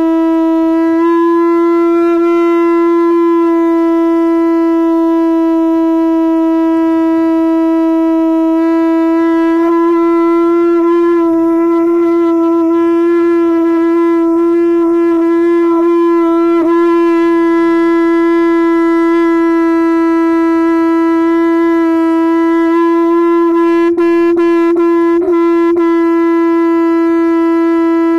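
Conch shell (shankh) blown in one long unbroken note as an endurance blow, the pitch held steady with a slight waver in the middle and near the end.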